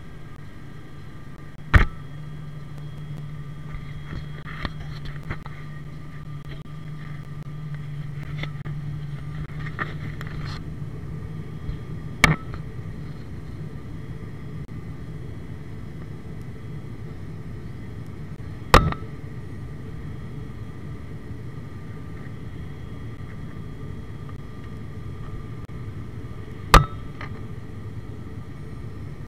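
Steady drone of a turboprop airliner's engines and propellers heard inside the cabin, with a low hum and a couple of higher steady tones. Four sharp knocks cut through it, about 2, 12, 19 and 27 seconds in.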